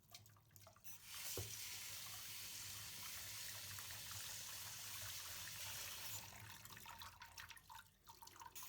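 Tap water running over cooked noodles in a colander to rinse them, a faint steady rush that starts about a second in and breaks up into an uneven trickle after about six seconds.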